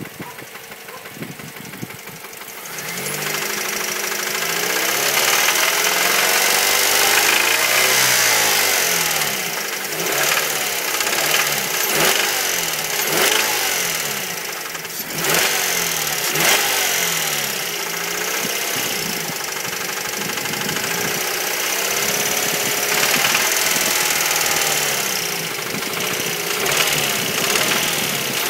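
A 2006 Mazda 3 SP23's 2.3-litre four-cylinder engine runs quietly at first. From about three seconds in it is revved up and down several times, with a deep hammering knock and a lighter ticking. The owner suspects the knock is rod knock from a worn big-end bearing in the No. 1 cylinder.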